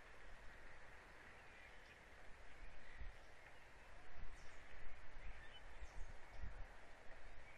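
Faint outdoor ambience with scattered distant bird calls, and a few low thumps near the microphone about three, four and six seconds in.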